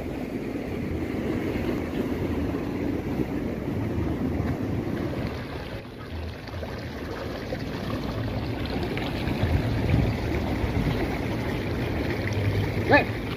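Wind buffeting the microphone outdoors: an uneven low rumbling noise, with a short pitched sound near the end.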